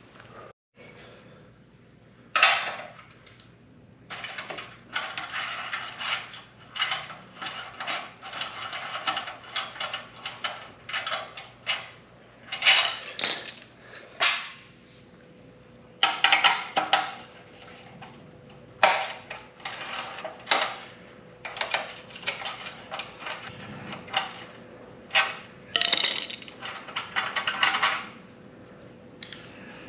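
Metal tools and exhaust parts clinking and clattering in many short, irregular bursts, as of hands-on work fitting a motorcycle exhaust.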